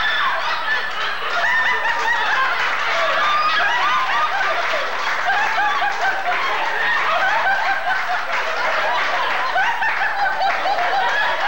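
A room full of people laughing together, many overlapping voices, loud and sustained.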